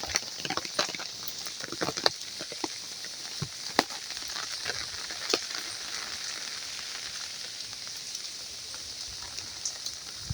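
Steady rain hissing, with scattered sharp drops striking nearby surfaces, the drops thickest in the first few seconds.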